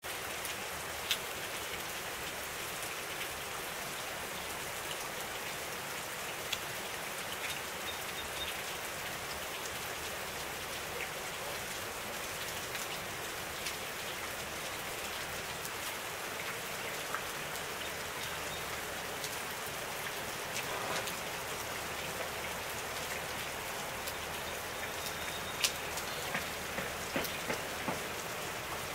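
Water dripping and trickling from a seeping sandstone overhang: a steady, rain-like patter with scattered louder single drops, a few of them close together near the end.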